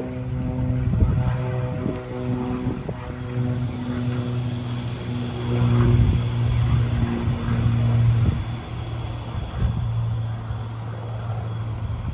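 Light propeller aircraft's engine and propeller droning steadily as it climbs away after takeoff, the drone thinning out near the end. Wind buffets the microphone throughout.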